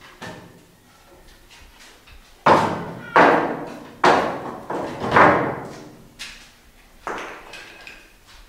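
A series of sharp bangs and thumps, about six in a few seconds, each starting suddenly and dying away with some room echo.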